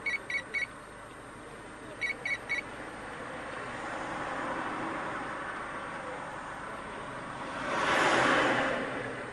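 Street traffic noise, with a vehicle passing in a swell of noise that peaks and fades near the end. Near the start come two quick runs of three short high beeps about two seconds apart.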